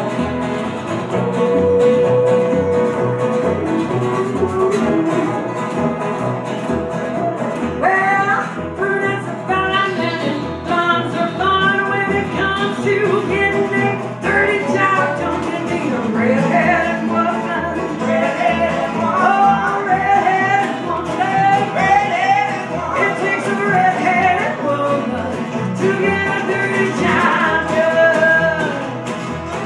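Live country-bluegrass band playing: acoustic guitar, banjo and upright bass under a woman singing lead, her voice coming in strongly about eight seconds in.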